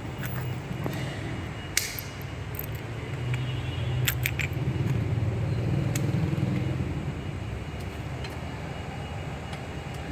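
An engine runs at a low, steady pitch and grows louder partway through, with several sharp metallic clinks over it.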